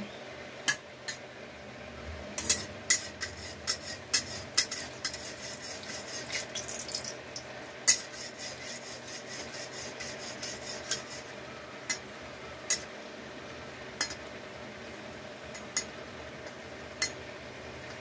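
Small paneer balls shallow-frying in a little oil in an iron kadhai: sharp pops and crackles of spitting oil, thick for a few seconds early on and sparser later. A metal spatula scrapes and taps the pan as the balls are turned.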